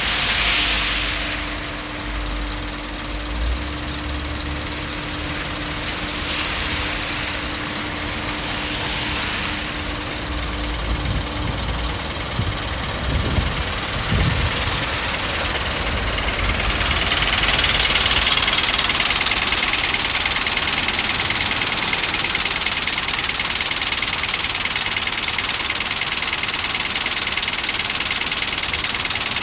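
Scania R560's V8 diesel engine idling steadily.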